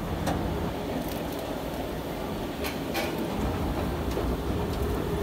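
Steady low rumble of a train, with a few faint clicks.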